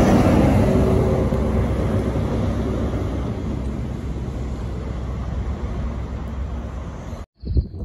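Class 43 HST power car passing close by: diesel engine and wheels on the rails running loudly, then fading steadily as the train draws away. The sound cuts off suddenly near the end.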